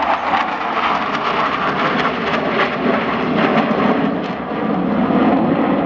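The jet engines of four Blue Angels F/A-18 Super Hornets flying over in diamond formation: a loud, steady jet roar whose pitch slowly falls over the first few seconds as the formation passes.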